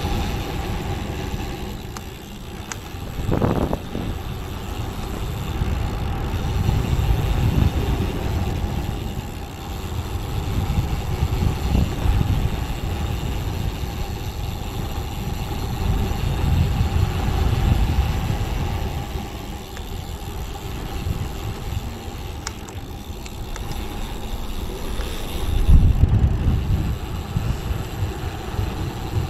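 Wind rushing over the microphone and tyre noise from a road bike descending at speed, a low rumble that swells and fades every few seconds, with a faint steady whine running through it.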